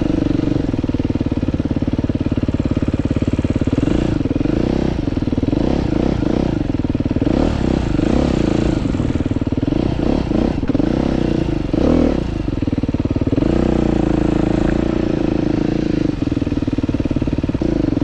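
Husqvarna 450's four-stroke single-cylinder engine running as the motorcycle is ridden. It holds a steady pitch, then from about four seconds in the throttle is opened and closed repeatedly, so the pitch rises and falls, before it settles steady again near the end.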